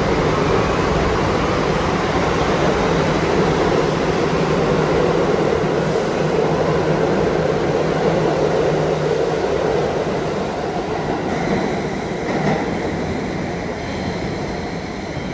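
New York City subway train running through the station, a loud steady noise with a low hum, easing off over the last few seconds.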